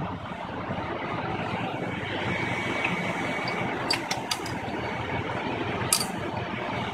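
Caterpillar 3412 V12 diesel engine of a 725 kVA generator set running steadily. A few sharp clicks come about four seconds in and once more near the end.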